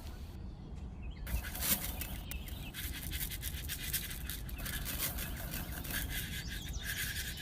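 A small electric motor whirring steadily, with scattered clicks and rattles.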